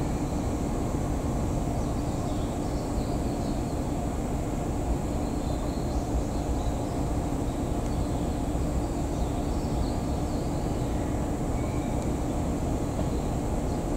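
Steady low rumble and hiss of a Shinano Railway 115 series electric train running slowly toward the listener from a distance, with a steady low hum and a few faint high chirps.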